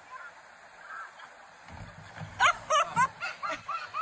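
A canoe capsizing at a riverbank, with a rapid series of short, high-pitched shrieks from people's voices starting about two seconds in.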